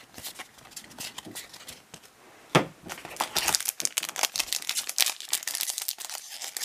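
A foil booster-pack wrapper being handled and torn open, with a sharp snap about two and a half seconds in, then dense crinkling of the wrapper.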